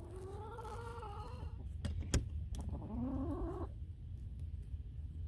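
A backyard hen making two drawn-out complaining calls, the second rising in pitch, with a couple of sharp knocks in between.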